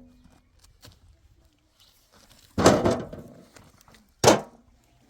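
Two heavy thuds about a second and a half apart, each dying away quickly.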